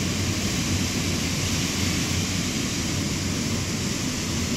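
Strong thunderstorm wind blowing hard and steadily, an unbroken rushing noise with a deep low rumble, with no let-up or gusting breaks.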